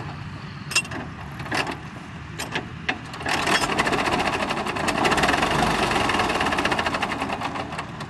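McCormick-Deering WD-6 four-cylinder diesel tractor engine being hand-cranked: a few separate clicks at first, then about three seconds in a fast, even mechanical clatter that grows louder and fades near the end.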